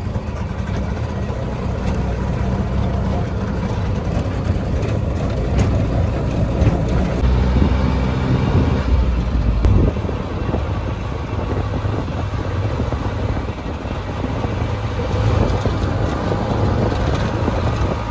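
Steady engine and road rumble heard while riding in a moving vehicle.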